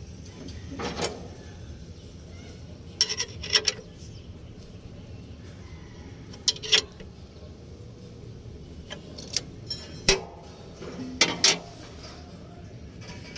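Metal tools clinking and clanking against metal in short clusters of sharp hits every few seconds, over a steady low hum.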